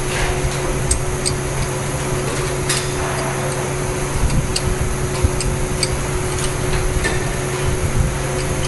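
Steady mechanical hum with scattered light metallic clicks and a louder scrape about three seconds in, as a spanner is worked on the bolts of a screen printing machine's bottle fixture.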